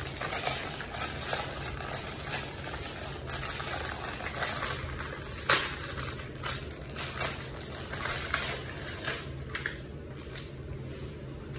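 Candy packaging being handled and opened: plastic crinkling and rustling with scattered clicks and taps, one sharper click about five and a half seconds in, over a steady low hum.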